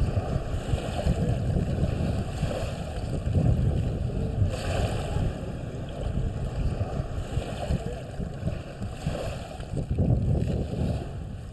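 Small waves washing over a pebble shore, with wind rumbling on the microphone; the wash swells and eases every second or two.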